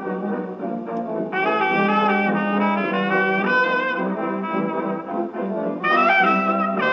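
A 1928 jazz dance-band record playing on a 78 rpm disc through an acoustic Orthophonic Victrola. This is an instrumental stretch with no vocal, with held bass notes under the band.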